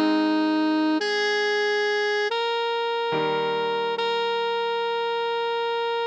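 Slow alto saxophone melody in a clean electronic, MIDI-style tone, playing about five held notes, with sustained keyboard chords beneath. The last note is held from about two-thirds of the way in.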